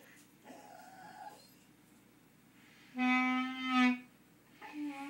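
Clarinet playing one loud held note about three seconds in, lasting about a second. A fainter wavering sound comes about half a second in, and another note begins near the end.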